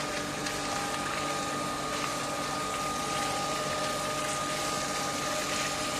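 Steady hum of a motor with water rushing through, like a water pump running while wheat is washed; it holds level with no break.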